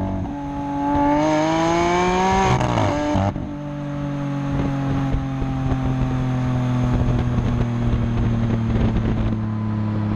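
Lamborghini Aventador's V12 engine through its factory race exhaust, revving up under acceleration for about three seconds, then a sudden drop at a gear change. After that it settles into a steady drone that slowly falls in pitch.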